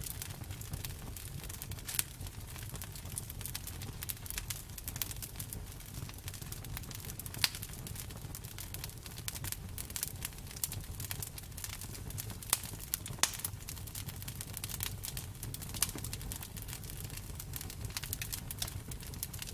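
Campfire burning: a steady low rumble of the flames with dense, irregular crackles and a few sharper pops from the burning wood.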